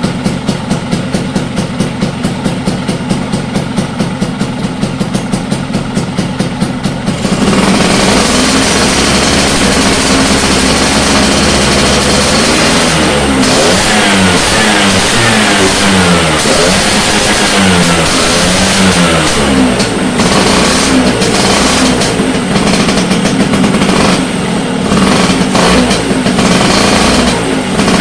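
Vespa Sprint's single-cylinder two-stroke engine, fitted with a PWK carburettor, idling with an even pulse. About seven seconds in it is suddenly revved harder and then blipped up and down over and over.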